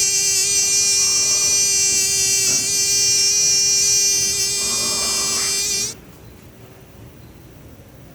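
A loud, steady, high-pitched buzz that holds one pitch, then cuts off abruptly about six seconds in, leaving only a faint background.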